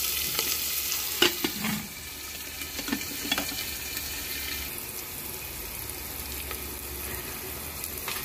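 Chopped onions and spices sizzling in hot oil in a pressure cooker, with a steady hiss of frying. A spoon stirring them scrapes and knocks against the pot a few times, about one second and three seconds in.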